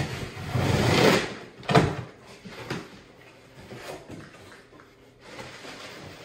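Cardboard shipping boxes being handled: a loud rustling scrape early on, a single knock just under two seconds in, then softer rustling of box flaps and plastic wrapping as a box is opened and an item taken out.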